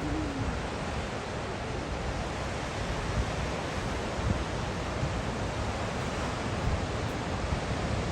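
Ocean surf washing against the shore, a steady wash of noise, with wind buffeting the microphone.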